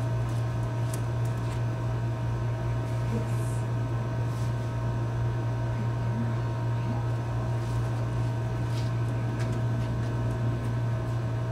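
A steady low mechanical hum with fainter steady tones above it, and a few faint ticks now and then.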